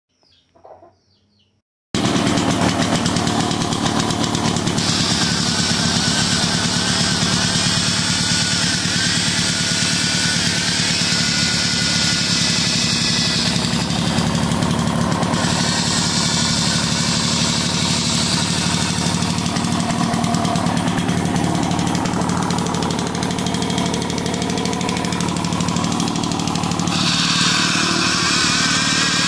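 A 1951 Homelite generator's two-stroke engine cuts in about two seconds in and runs steadily and loudly under load. An electric drill plugged into the generator whines over it in several stretches, switched on and off, showing that the generator is making power.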